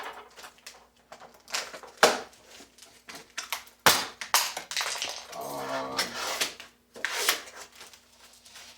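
Handling of a shoe box and its packaging: sharp knocks, scrapes and rustles every second or two. A short pitched sound comes a little past halfway.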